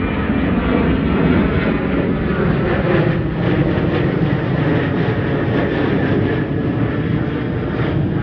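Boeing 737 jet airliner climbing out overhead after takeoff, its engines making a loud, steady noise.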